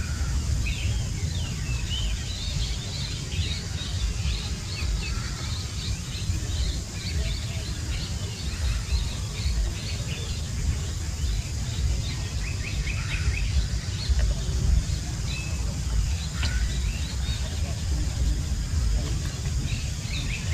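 Outdoor ambience of small birds chirping, many short, high chirps scattered throughout, over a steady low rumble.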